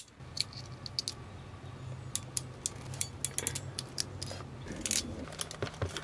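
Hand wiring tools at work on automotive wires: a wire stripper and a crimping tool for Deutsch terminals. There is a sharp click at the start, then a scatter of small metallic clicks and snaps as the tools close on the wires.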